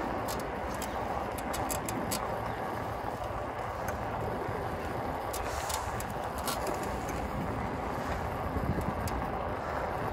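Bicycle riding along an asphalt road: a steady rush of wind and tyre noise, with scattered light clicks.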